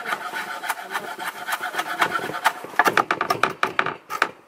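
Chef's knife chopping fresh parsley and dill on a wooden cutting board: a quick, even run of blade taps on the wood, coming faster and louder about three seconds in.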